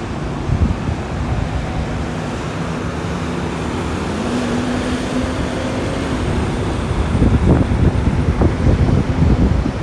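Freeway traffic noise: a steady wash of cars and trucks, with an engine drone in the middle. It turns louder and gusty with low rumbles in the last few seconds as a semi-truck passes close below.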